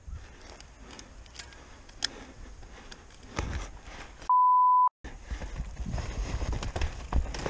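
A censor bleep: a steady 1 kHz tone about half a second long, a little past halfway. Before it come faint clicks and rustling as a mountain bike's dropped chain is handled at the rear wheel. After it come louder footsteps and rattling as the bike is pushed uphill at a run.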